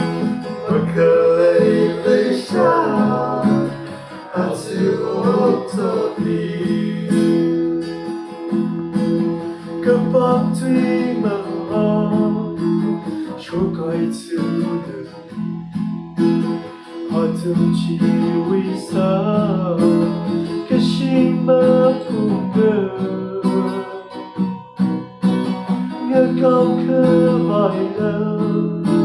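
Acoustic guitar strummed, capo on the neck, with a man singing a song over it.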